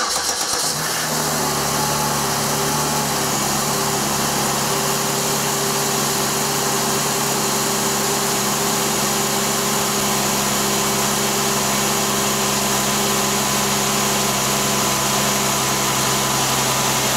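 2006 Pontiac G6 GTP's 3.9-litre V6 starting from cold: it catches within the first second and runs at a steady fast cold idle of about 1,300 to 1,400 rpm.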